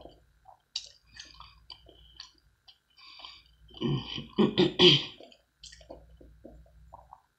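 Drinking through a straw: small sucking clicks and swallows, then a louder stretch of gulping and gurgling about four seconds in.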